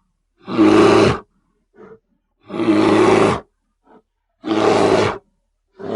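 Bear roaring in repeated calls about a second long, three in a row about two seconds apart, with faint short grunts between them. A fourth roar begins near the end.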